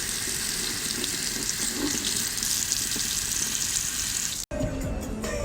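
Running water, a steady even hiss. It cuts off abruptly about four and a half seconds in, and street music with voices follows.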